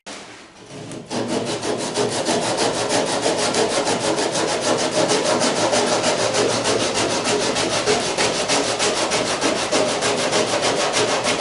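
A hand tool scraping over the plywood edges of a wooden boat's bow in rapid back-and-forth strokes, about six or seven a second, starting about a second in. This is the hull's end being worked flat for a laminated outside stem.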